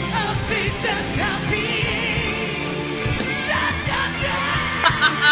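Live rock band performance with a male lead singer belting high, wavering held notes over drums and the full band.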